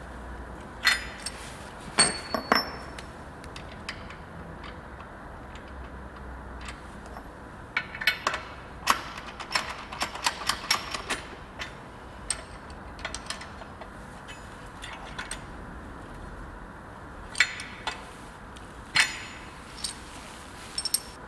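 Sharp metal clinks and taps as a steel pin and clip are handled and fitted into the galvanised steel brackets of a forklift sweeper broom frame. The clicks come singly at first, in a quick cluster about eight to eleven seconds in, then singly again near the end.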